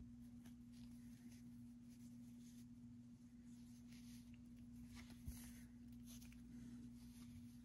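Near silence: a steady low hum, with faint rustles of yarn and needle being handled as yarn is woven through knitted loops, and a small tap a little past five seconds in.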